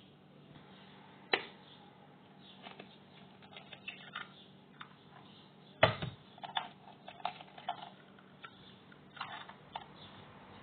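Eggs being cracked on the edge of a mixing bowl: a sharp knock about a second in, a louder knock near the middle, then a run of small clicks and crackles as the shell is pried apart.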